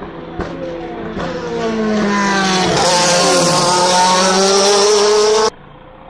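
DTM race car's V8 engine passing at speed, growing loud as it approaches; its pitch drops and then climbs again as it goes by. It cuts off suddenly near the end.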